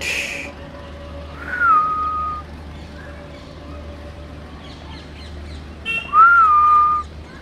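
A short breathy hiss, then two clear whistled notes, one about a second and a half in and a louder one near the end, each rising briefly and then held steady for about a second.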